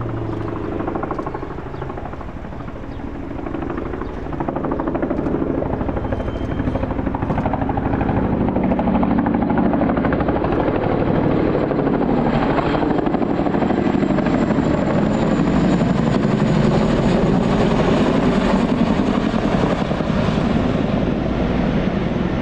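Boeing CH-47 Chinook tandem-rotor helicopter flying low overhead, its rapid rotor beat growing louder after about four seconds and staying loud.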